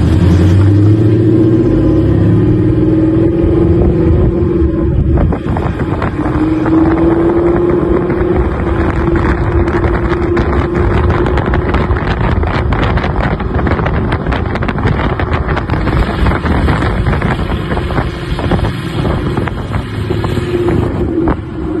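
Ford Mustang GT's 5.0 V8 exhaust running loud under acceleration, its low note rising in pitch over the first couple of seconds and then holding steady.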